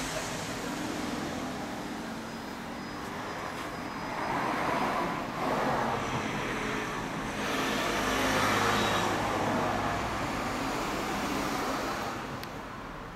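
Motor vehicle noise, swelling louder twice, about four and about eight seconds in, then fading near the end.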